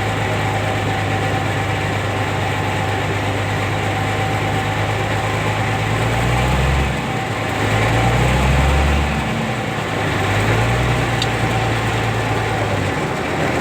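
Caterpillar D6D bulldozer's diesel engine running steadily. Over the second half its note rises and falls in three swells, as if revved or put under load, before settling back.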